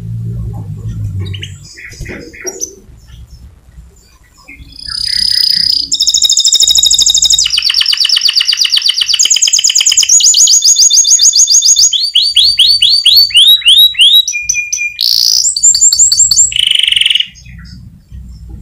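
White canary singing loudly in fast trilled phrases, each a rapid run of repeated high notes, switching to a new phrase every second or two. The full song starts about four seconds in after a few faint chirps and stops abruptly near the end.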